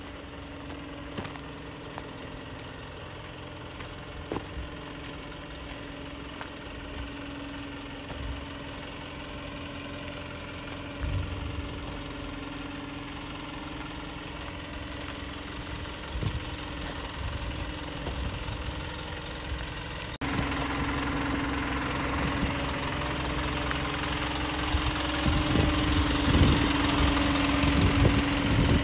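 Isuzu NPR box truck's engine idling steadily, with low thumps on the microphone here and there; the engine sounds louder in the second half.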